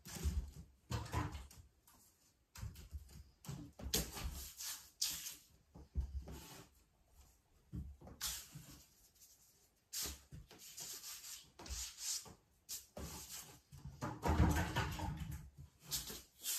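A wide bristle paintbrush scrubbing and dragging thick paint across a large stretched canvas, in irregular short scratchy strokes, some with a dull thump as the brush presses into the canvas.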